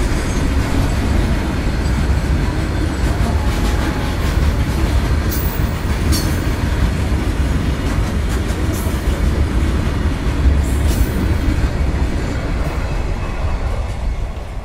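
Goods train of open-top freight wagons passing at close range: a steady low rumble with wheels clacking over the rail joints and a few brief high screeches. It grows quieter near the end.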